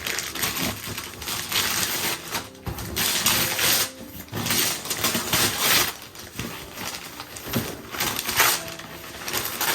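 Wrapping paper being torn and crumpled off a gift, in several separate ripping pulls with short pauses between.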